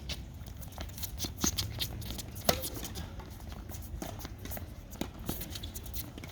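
Scattered light taps and clicks from a tennis court, with one sharper knock about two and a half seconds in.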